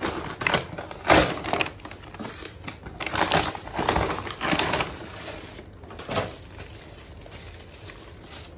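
Brown paper mailer bag being torn open and crumpled in the hands: irregular rips and crinkles, loudest in the first half. Then quieter rustling as a plastic-wrapped parcel is handled.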